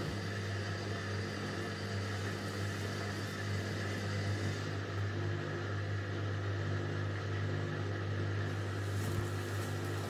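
Indesit front-loading washing machine running in its wash cycle, a steady low hum as the drum turns the laundry slowly, with a faint click near the end.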